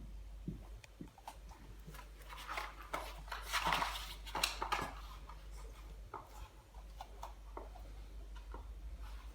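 Cane Corso puppy and kitten play-fighting: scuffling, with paws and claws tapping and clicking on the floor, loudest in a burst of rustling scuffle about halfway through. A low steady hum runs underneath.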